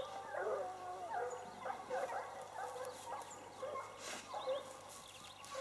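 Several hounds baying at once, their short, wavering calls overlapping in a steady chorus.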